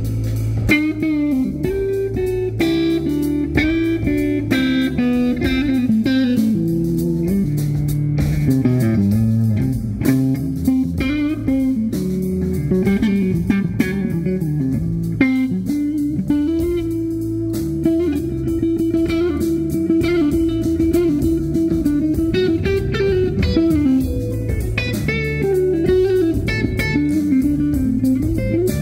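Live rock band playing an instrumental passage: a lead electric guitar plays a melodic line of bent and long-held notes over a heavy bass line and drums.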